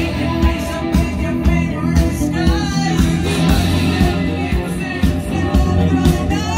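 Rock song with a singer over a steady bass and drum beat, played back through an Akai stereo amplifier with STK power chips and its speakers.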